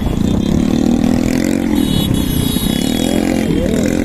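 Motorcycle engine running while riding through traffic, its pitch rising and easing off with the throttle.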